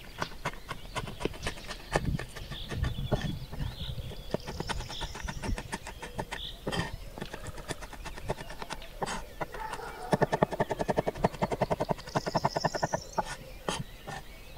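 Kitchen knife chopping walnuts on a wooden cutting board: repeated knocks of the blade on the wood, breaking into a fast, even run of chopping taps about ten seconds in.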